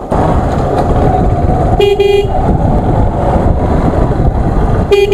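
Bajaj Pulsar 135 LS motorcycle riding off, with a steady engine rumble and wind noise, while a horn beeps twice, each about half a second long and roughly three seconds apart.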